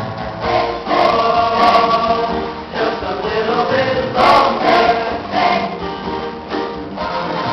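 A large chorus singing together in full voice.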